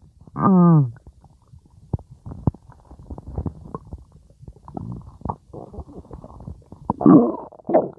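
Stomach growling. There is a falling groan just under a second in, then a long run of bubbling gurgles and pops, and a louder gurgle about seven seconds in.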